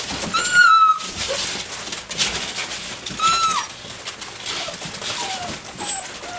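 Six-week-old Doberman puppies squealing at play: two high-pitched yelps, about half a second in and about three seconds in, then a few fainter short whines. Under them runs the scuffle of paws in wood shavings.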